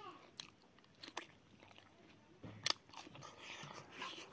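Close-miked chewing and mouth sounds of a man eating a mouthful of rice and boiled pork, with a few sharp clicks, the loudest about two-thirds of the way through.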